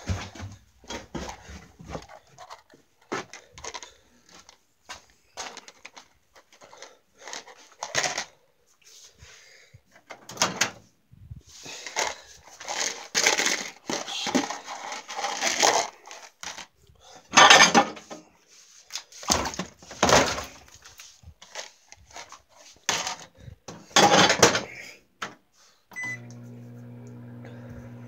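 Irregular handling noise, rustling and clatter as a plastic bowl is set inside a microwave oven. About two seconds from the end a short keypad beep sounds and the microwave starts running with a steady hum.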